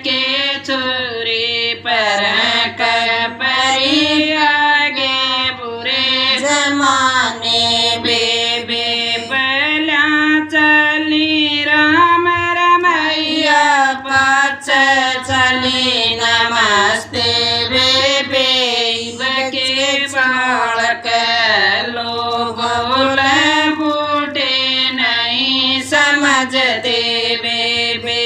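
A woman singing a Haryanvi folk song in long, wavering, ornamented phrases.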